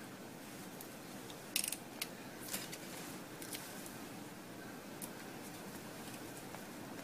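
A few sharp clicks and snips from pliers working a cable at a small circuit board on an opened car radio unit, the loudest about one and a half seconds in, with the rest spread over the next few seconds.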